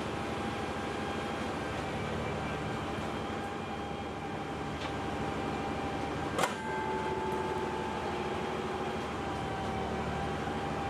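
Steady machinery hum with a whine from the recovery crane as a freight wagon hangs on its lifting chains. A single sharp metallic clank comes about six and a half seconds in, after which the whine shifts slightly in pitch and a lower tone joins it.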